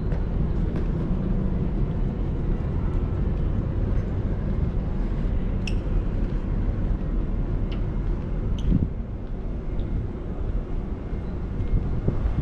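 Steady low rumbling ambient noise on a cruise ship's open deck, with a few faint clicks around the middle.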